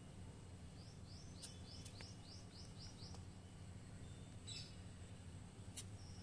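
A bird chirping faintly: a quick run of about nine short rising chirps, roughly four a second, followed by a few sharp clicks and a brief rustle, over a low steady hum.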